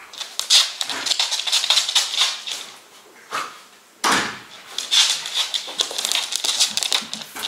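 Welsh Corgi puppy rolling and rubbing on a towel: rapid rustling and scratching of fabric. There is a sudden thump about four seconds in.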